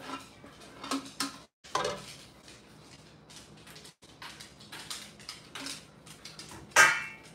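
Spatula scraping sauce from the bottom of a stainless steel pot, with utensils clinking and knocking against the pot and a glass bowl. A single loud metallic clank near the end.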